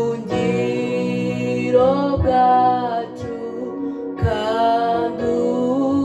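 A woman singing a slow melody into a handheld microphone in phrases, accompanied by sustained chords on an electronic keyboard.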